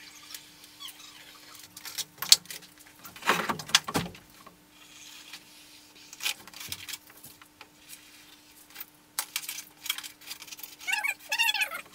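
Hot knife cutting through rigid foam insulation panels: scattered clicks and scrapes, a scraping burst about three seconds in, and a run of squeaks near the end, over a faint steady hum.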